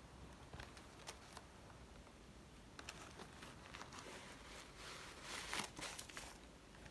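Faint handling noise: a few light clicks, then soft rustling and crinkling that builds about halfway through and fades near the end.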